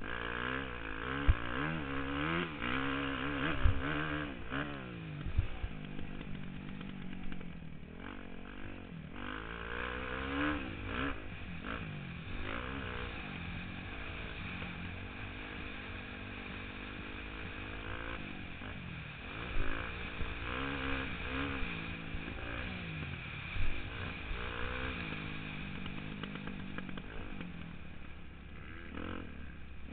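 Motocross dirt bike engine heard from the rider's helmet, revving up and dropping back again and again through acceleration, gear changes and braking, over a steady rush of wind. A few sharp knocks stand out, several in the first few seconds and two more past the middle.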